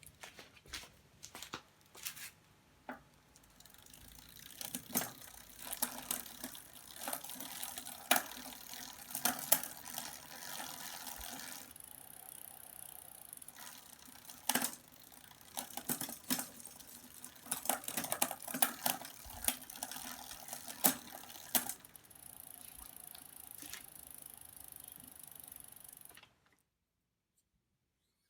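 Hands-on workshop sounds: a run of sharp clicks and knocks over a rustling hiss, with the sound cutting off abruptly to dead silence near the end.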